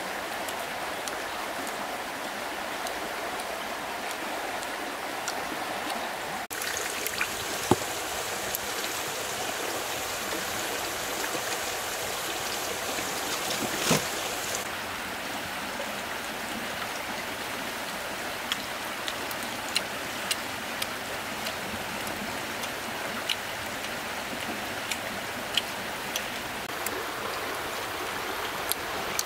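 Steady rush of running water, with scattered light clicks and taps. A brighter hiss joins for several seconds in the middle.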